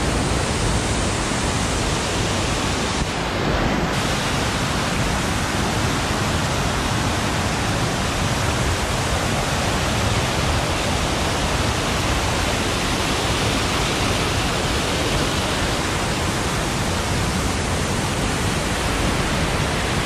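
Cummins Falls heard from right beneath it: a loud, steady rush of falling water with no let-up.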